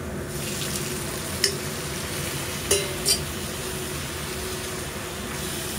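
Minced garlic sizzling in hot oil in a wok, a steady frying hiss. Three sharp clinks about a second and a half in, then near the middle, as a steel bowl and utensil knock against the pan while soaked bean-curd-skin strips are tipped in.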